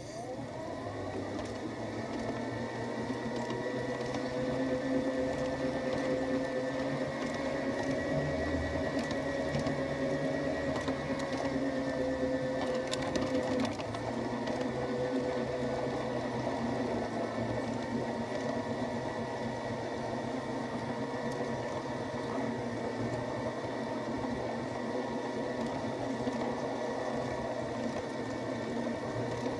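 Small electric motor and gearbox of a garden-scale model streetcar whining steadily as it runs along the track, heard from inside the car. The pitch rises over the first couple of seconds as it picks up speed, then holds.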